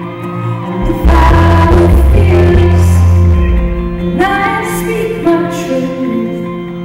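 Live pop song: a woman singing to acoustic guitar with a band behind her, heard from the audience. The bass swells loud from about a second in for a couple of seconds, then drops back under the voice and guitar.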